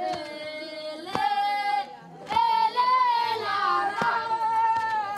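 A high, unaccompanied voice singing long held notes that bend in pitch, with three sharp knocks between phrases.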